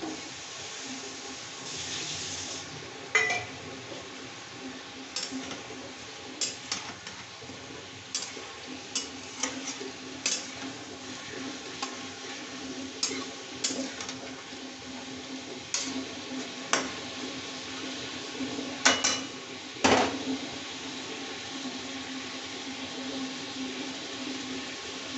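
Metal spatula clinking and scraping against a metal kadai as chicken pieces are stirred and turned in hot oil, over a steady sizzle. The clinks come irregularly, loudest about three seconds in and twice near the twenty-second mark.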